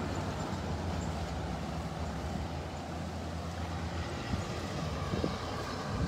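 Steady rush of fast, muddy floodwater flowing in a wide river channel, with a low steady hum underneath.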